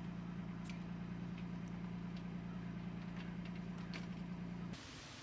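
A steady low mechanical hum, like an engine running, with a few faint clicks over it. The hum cuts off abruptly near the end.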